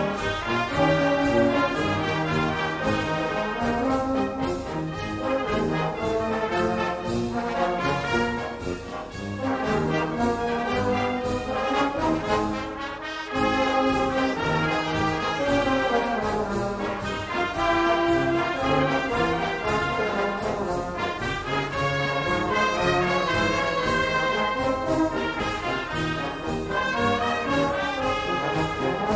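A wind band plays a brisk Maltese festive march (marċ brijuż), brass to the fore over a steady, evenly spaced drum beat.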